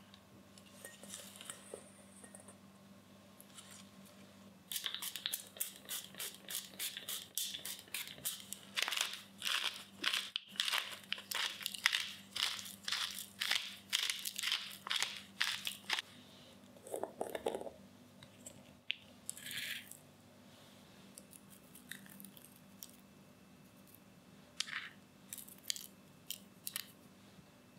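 Wooden pepper mill grinding black pepper: a fast run of crunching clicks, about three a second, lasting roughly ten seconds. After a pause come a few light scattered crackles near the end.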